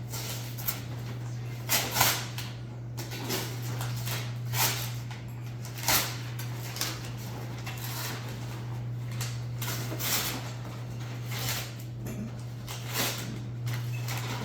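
Wrapping paper being ripped and crumpled in irregular rustling bursts, over a steady low hum.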